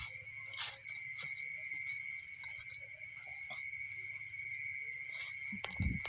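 Steady chorus of night insects such as crickets, several high continuous trills at once, with faint scattered ticks and rustles. Near the end comes a louder rustle and knock as leaves are pushed aside by hand.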